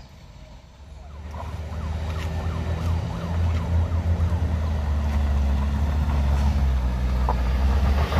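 Toyota HiAce van's engine pulling hard up a steep, rough dirt climb: a low drone that begins about a second in and grows steadily louder as the van nears. For a couple of seconds near the start, a faint, fast-warbling siren-like tone sounds over it.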